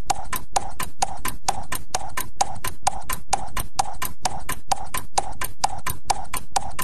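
Fast, even percussive clicking, about five knock-like clicks a second, a clip-clop style beat opening a backing music track.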